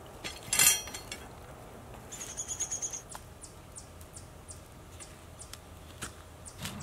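A sharp clatter of iron cooking-grate rods being handled about half a second in, the loudest sound here. Then a bird's high pulsing trill lasts about a second, followed by a run of short high chirps about twice a second.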